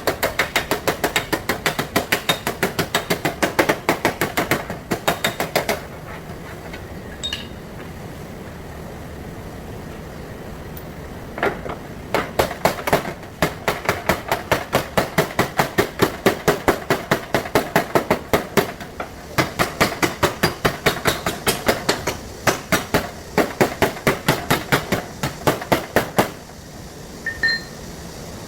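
Hammer blows on a Volvo V60's damaged sheet-metal fender being panel-beaten, rapid and rhythmic at about five strikes a second, in two long runs with a pause of several seconds between.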